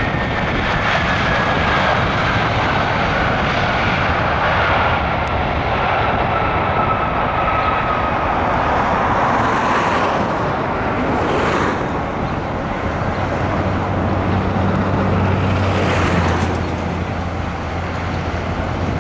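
Airbus A320-214's CFM56-5B turbofan engines running loud as the airliner rolls out after touchdown, a steady rush with a whine that falls slowly in pitch over the first eight seconds or so as the jet moves away down the runway. A low steady hum joins about two-thirds of the way in.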